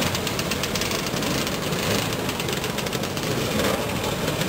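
Several Lambretta scooters' small two-stroke engines running as they ride slowly past one after another, their exhausts giving a rapid ticking buzz.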